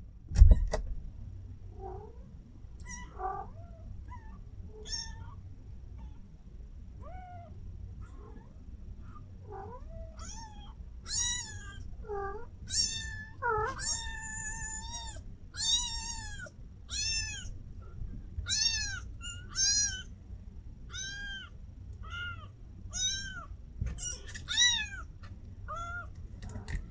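A thump about half a second in, then a young kitten mewing: a few soft, scattered mews at first, then from about ten seconds in a steady string of louder, high-pitched mews, more than one a second.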